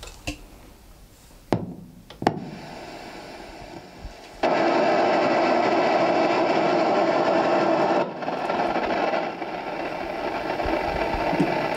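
Ghost-hunting 'portal' device set on an old radio, switched on with a couple of clicks and then playing loud, steady radio static through its speaker. The static comes in sharply about four and a half seconds in and drops slightly about eight seconds in.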